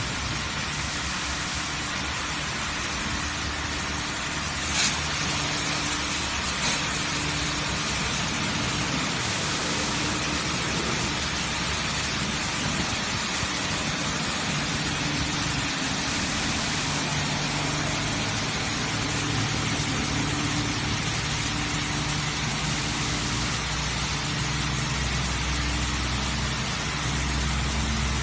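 High-pressure water jets of a touchless truck wash hissing steadily as they spray over a tanker truck, with a low mechanical hum underneath. Two sharp clicks about five and seven seconds in, and the low rumble grows louder near the end.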